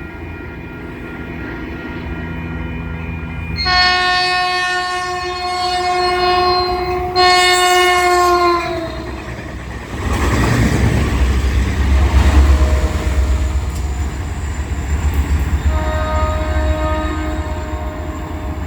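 Caltrain locomotive horn sounding two long blasts, the pitch of the second dropping as it ends, followed by the heavy low rumble of the train passing. A fainter horn blast comes near the end.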